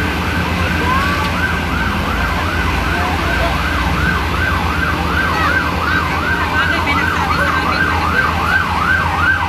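An emergency vehicle siren sounding a fast up-and-down yelp, about two sweeps a second, starting about a second in, over a steady low engine hum.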